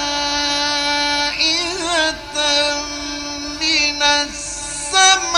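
Male Quran reciter's voice in the melodic mujawwad style of tajweed, holding long sustained notes with wavering ornamental turns between them.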